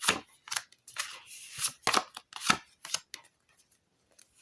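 A deck of fortune-telling cards being shuffled and drawn: a few sharp card snaps and slaps about half a second apart, with a short sliding rustle between them.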